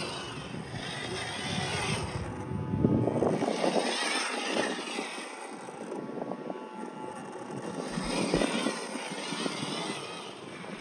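A 1/12-scale MN99S RC crawler's small 260-size electric motor and drivetrain whining as the truck crawls over rock, with its tyres scrabbling on the stone. Wind buffets the microphone for the first few seconds.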